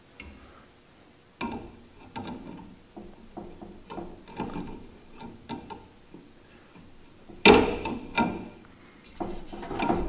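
Pliers working the retaining clip on a squirrel-cage blower fan inside an RV furnace's sheet-metal housing: an irregular run of small clicks and knocks, with a louder clank about seven and a half seconds in and another cluster near the end.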